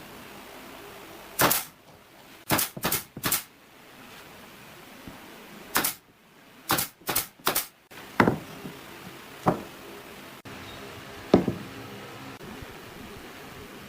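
Sharp knocks from hand-tool strikes on wood, some single and some in quick runs of three, the last few ringing briefly after the hit.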